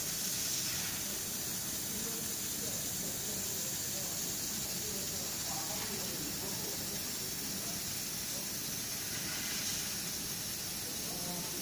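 500 W fiber laser cutting head cutting 5 mm black steel plate: a steady hiss of assist gas blowing from the nozzle through the cut.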